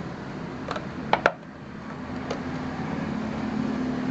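A dog biting and chewing an empty plastic mineral-water bottle: a few sharp plastic cracks, the loudest a close pair about a second in, over a steady low hum.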